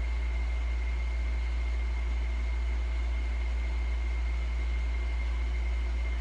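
A steady low hum, with a thin high whine held on one note above it, that does not change.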